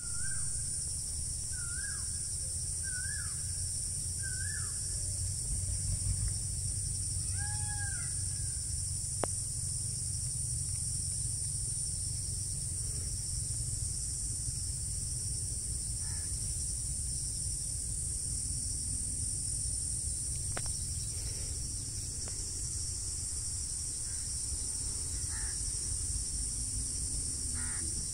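A steady, high-pitched insect chorus over a low rumble of wind. In the first eight seconds an animal gives five short calls, each rising and then falling.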